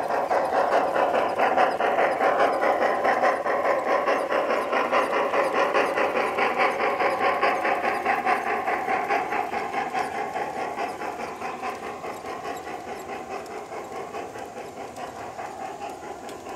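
G-scale model freight train running past on garden track, making a steady rhythmic clatter of about three beats a second. The sound fades over the second half as the train moves away.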